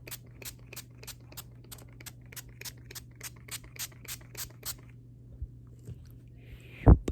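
Close-miked ASMR mouth sounds: an even run of crisp clicks, about four a second, that stops after nearly five seconds. One louder pop follows near the end.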